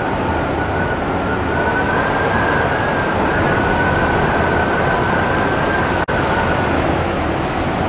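Strong wind of about 80 km/h blowing hard, a heavy rushing roar with a steady high whistle that wavers slightly in pitch. The sound cuts out for an instant about six seconds in.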